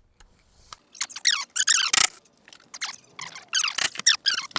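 High-pitched squeaks and sharp clicks of a hand tool working undertray bolts loose: Torx and triple-square fasteners squealing as they turn. The squeaks come in short falling sweeps, several times, from about a second in.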